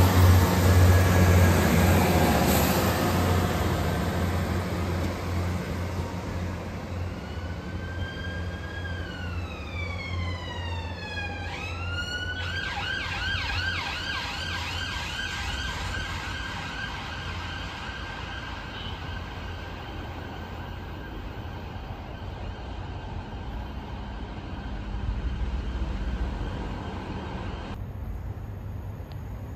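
A CAF diesel multiple unit's engine drone fades as the train pulls away. An emergency vehicle siren then sounds from about seven seconds in: a long falling sweep, then a steady warbling tone that carries on under a low rumble.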